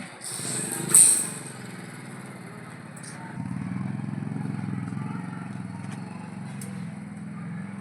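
An engine running steadily with a fast, even pulse, growing louder about three and a half seconds in. A sharp hissing scrape comes about a second in and is the loudest moment.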